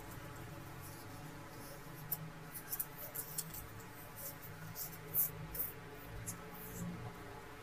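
Short, irregular dry scratching strokes of hand cleaning on a dusty, opened laptop's parts, about a dozen strokes starting about two seconds in, over a faint steady background hum.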